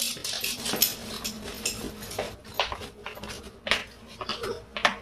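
Footsteps of a person and two small dogs walking across a wooden floor and rug: scattered taps and clicks about once a second.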